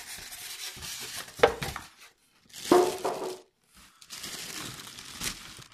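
Clear plastic bag wrapping an air fryer crinkling and rustling as it is handled among cardboard and styrofoam packing. There are two louder handling noises, about one and a half and three seconds in, with brief pauses between the stretches of rustling.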